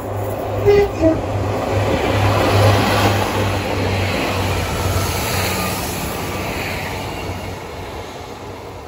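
A Class 143 Pacer diesel multiple unit gives two short horn notes about a second in. It then passes close by with a loud rush of wheel and engine noise over a pulsing low rumble, which fades as it draws away.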